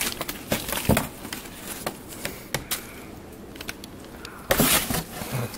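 Bengal kitten thrashing at a plastic cereal bag inside a cardboard box: plastic crinkling with scattered knocks and scratches on the cardboard, and a louder burst of rustling about four and a half seconds in.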